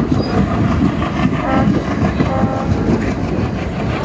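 Passenger train's coaches moving along the track, with steady wheel-on-rail running noise and clatter, heard close up from an open coach doorway.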